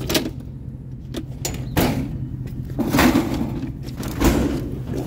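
Clunks and scrapes of a bulky item being shifted into place in a vehicle's cargo area, about five knocks and slides in all. A steady low hum of an idling engine runs underneath.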